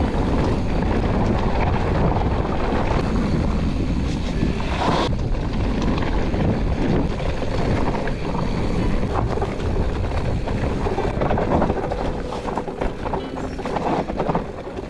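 Steady wind rush on the camera microphone of a riding mountain biker, with low rumble and short rattles from the bike rolling over the trail.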